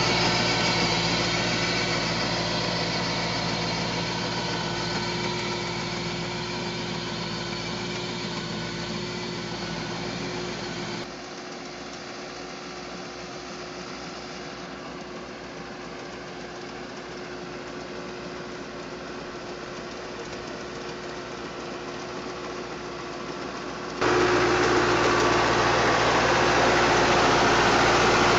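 A farm machine's engine running steadily, as used to drive orchard pruning equipment. It drops abruptly to a quieter, duller sound about eleven seconds in and jumps back to the louder sound near the end.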